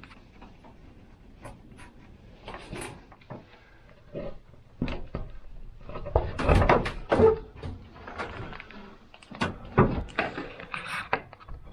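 A hiker's footsteps and the rustle and knock of his gear and clothing as he walks, in uneven thuds, with a few louder clusters in the second half.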